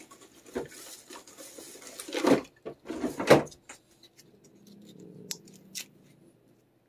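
Handling noise beside a wire cage: rustling, then two loud knocks about two and three seconds in, and a couple of faint clicks later.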